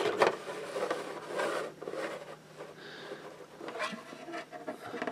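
Plastic model kit sprue being handled and shifted on a tabletop: irregular rubbing and scraping with a few light knocks.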